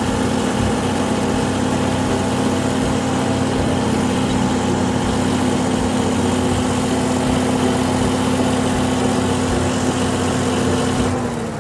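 Engine idling sound effect: a steady, unbroken engine drone that drops a little in pitch and fades right at the end.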